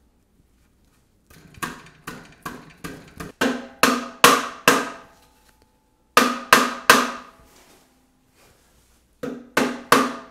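A mallet repeatedly tapping a 3D-printed PLA drive wheel down onto the motor shaft, each blow with a short ring. The blows come in three runs: about ten growing louder, then four, then another quick run near the end.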